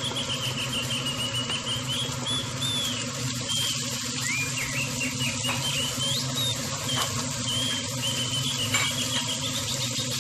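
Diced onion sizzling in hot oil in a wok, with a steady hiss and the occasional light tap of a wooden spatula stirring it. Short high chirps repeat over the sizzle throughout.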